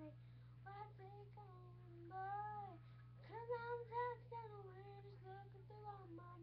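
A young girl singing a melody alone, with no accompaniment, in held notes that bend in pitch, broken into short phrases.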